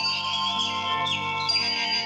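Music playing from an electronic children's learning pen (the 'wisdom flute'): held synthesized notes that change pitch every half second or so, with short high chirping glides over them.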